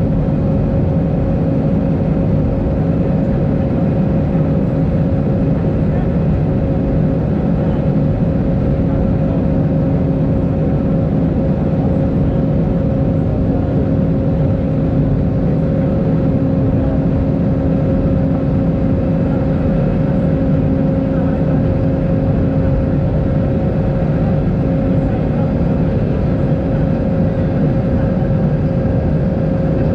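Cabin noise of an Airbus A319 airliner climbing after takeoff, heard from a window seat over the wing: a steady rush of engine and airflow noise with a constant low hum.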